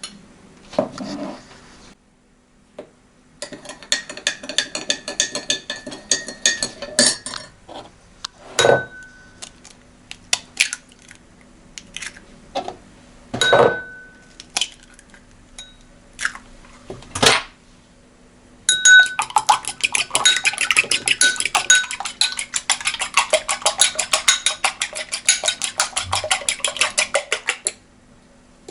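Kitchen dishes and metal utensils clinking and clattering: two long stretches of rapid, even strokes of a utensil against a bowl, with single ringing clinks between them.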